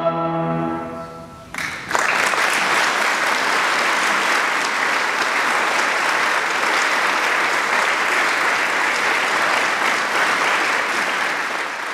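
A choir's final held chord with piano dies away, and about a second and a half in an audience breaks into steady applause that carries on and tapers off near the end.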